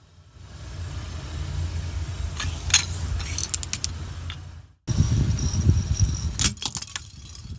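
A car tyre rolling slowly over plastic scrub brushes on asphalt: a steady low rumble of the car with a quick run of sharp cracks and snaps as the plastic breaks, between about two and four seconds in. After an abrupt cut the rumble resumes and another cluster of sharp cracks comes near the end as the tyre crushes a second object.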